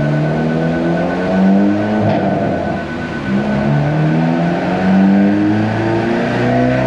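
Turbocharged 2.0 T-GDI four-cylinder engine from a Veloster N, fitted with an open intake, pulling a car on a chassis dyno, heard from inside the cabin. The revs climb, then drop back at gear changes about two, three and six seconds in.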